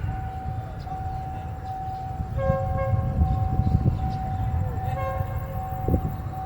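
QSY diesel locomotive rumbling as it pulls a train into the station, the rumble building from about two seconds in. Two short horn notes sound, about two and a half and five seconds in, over a steady high tone.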